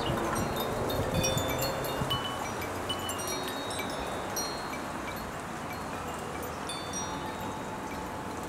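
Wind chimes tinkling with scattered, short, high ringing notes over a steady hiss of wind.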